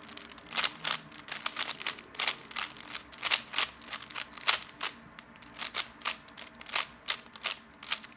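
3x3 Rubik's Cube being turned in the hands: quick plastic clicks of the layers snapping round, irregular at a few per second.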